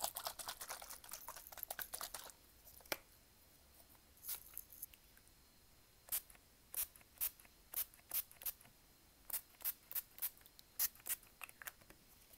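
Fingers handling and tapping a plastic water bottle. First comes a dense run of rapid crinkling clicks for about two seconds, then, from about halfway through, separate sharp taps at roughly two a second.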